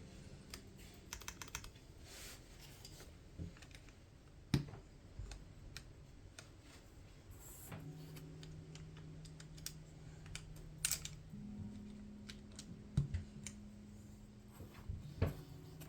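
Scattered, irregular plastic clacks of keys being pressed down on a Neo65 mechanical keyboard fitted with PBT keycaps and tactile switches.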